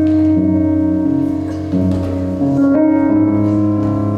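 Music: slow held keyboard chords, the notes changing every second or so, with a steady low bass note.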